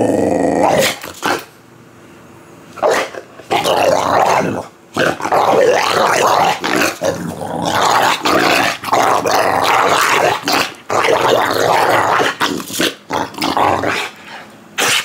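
Boxer dog play-growling while being wrestled: long rough growls lasting a second or more, broken by short pauses.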